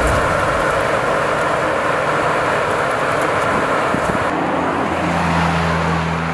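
A Ram 1500 RHO pickup, powered by a 3.0-liter Hurricane twin-turbo straight-six, driving at road speed, its engine mixed with tyre and road noise. A little past halfway the sound turns to a steadier, lower drone as the truck moves off down the road.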